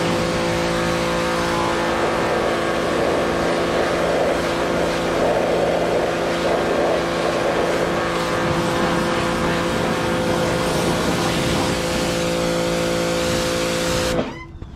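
Pressure washer running steadily, a constant machine hum under the rushing spray of its water jet hitting a mower. The sound cuts off sharply near the end.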